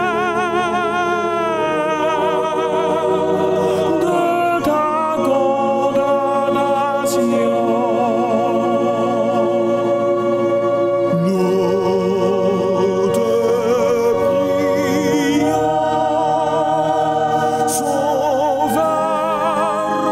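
A slow sung hymn: a voice with wide vibrato holds long notes over sustained low accompaniment chords that change every few seconds.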